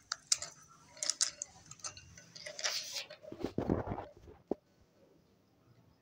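Silicone spatula scraping and pressing tomato puree through a steel mesh strainer, a run of short scrapes and clicks against the mesh. About three and a half seconds in there is a low thump.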